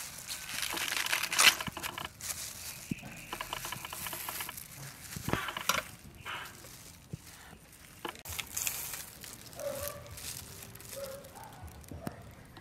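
Crisp crinkling and tearing of raw cabbage leaves being torn and folded into a wrap by hands in a thin plastic food glove, with the glove rustling. The sound comes in irregular crackly bursts, loudest about a second and a half in.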